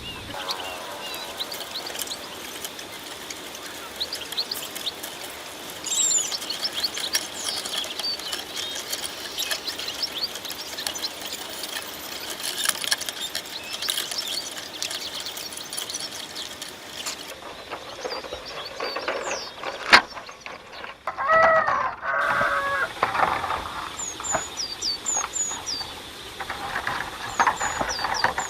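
Small birds chirping repeatedly with short high calls, and a chicken clucking briefly about three-quarters of the way through, over scattered light clicks and taps.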